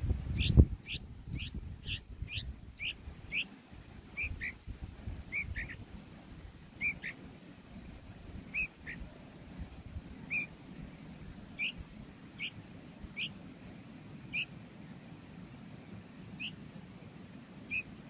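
Bulbul fledgling giving short, high begging chirps that each slide downward. They come quickly at first, about two a second, then slow to about one every second or so. A low thump sounds just after the start.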